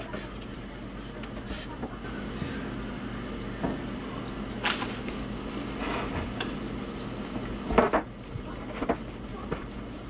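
Bananas being peeled and broken into a ceramic bowl: scattered light clicks and knocks of fruit and fingers against the bowl, the sharpest about eight seconds in, over a steady low hum.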